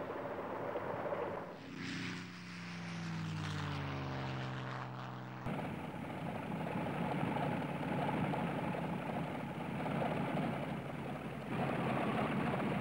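Propeller fighter's piston radial engine: a drone that falls steadily in pitch for a few seconds, then cuts abruptly to a steady, noisy engine-and-propeller run that grows louder near the end.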